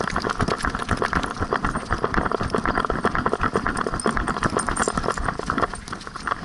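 Rapid rhythmic knocking and rattling from a camera strapped to a running doodle, jolted with every stride as its paws beat the dry, sandy ground. The beat eases off near the end as the dog slows.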